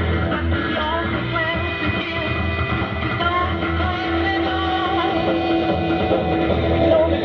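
Rock music with singing and guitar, received on a shortwave radio, with no treble above the narrow broadcast band.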